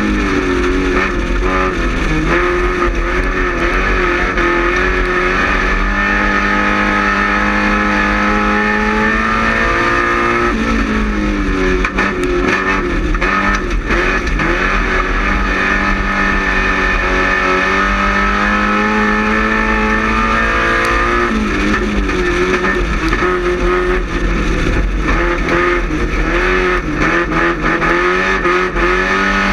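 Race car's Quad 4 four-cylinder engine running hard at steady high revs. Its pitch dips and climbs back twice, about ten seconds apart.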